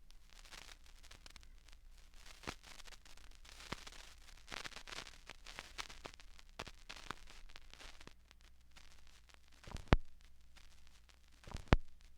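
Faint static hiss and crackle with scattered clicks over a low steady hum, and loud sharp pops about ten seconds in and again near the end.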